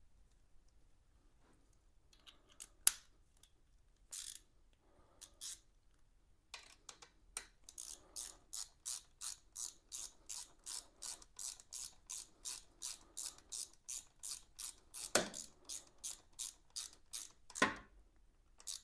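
Hand ratchet driving in a motorcycle radiator mounting bolt, clicking in a steady back-and-forth rhythm of about three strokes a second. A sharp click comes about three seconds in, and there are two heavier knocks near the end.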